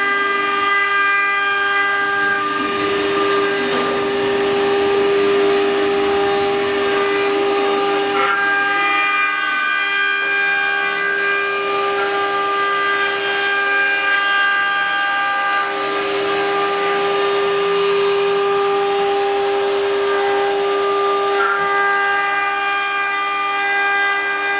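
Multi-spindle 4-axis CNC router with its spindles running at high speed, carving wood: a steady whine made of several held tones, some of which briefly drop out and come back.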